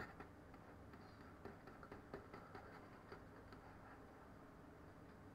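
Near silence: room tone with faint, scattered clicks from a computer mouse used to paint skin weights.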